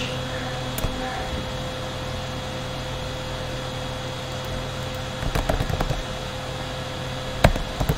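Computer mouse clicks and keyboard taps over a steady electrical hum: a faint click about a second in, a short run of soft knocks between five and six seconds, and a sharp click near the end.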